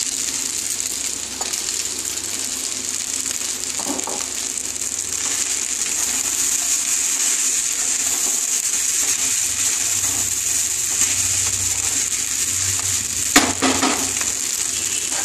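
Spiral pasta with vegetables and chopped egg sizzling steadily in a frying pan as a wooden spatula stirs it, with a sharp knock of the spatula against the pan near the end.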